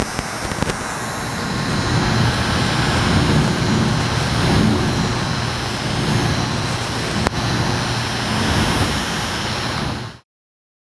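Miniature air conditioner's fan running steadily close by, a loud even whoosh of moving air with a low rumble. There is a single click about seven seconds in, and the sound cuts off abruptly near the end.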